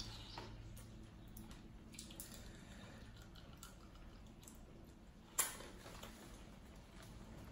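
Faint wet eating and handling sounds: sauce-covered seafood being picked apart by hand, with scattered small clicks and one louder sharp click about five seconds in.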